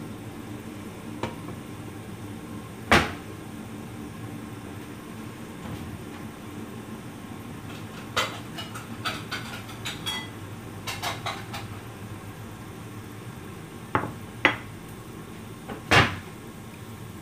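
Kitchen clatter: scattered sharp knocks and clinks of cookware and utensils over a steady low hum. The loudest knocks come about three seconds in and near the end, with a quick run of lighter clinks in the middle.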